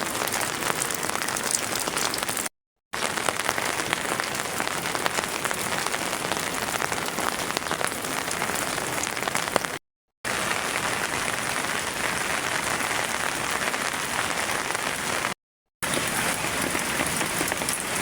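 Heavy rain falling steadily, a dense patter of drops, broken three times by brief gaps of total silence.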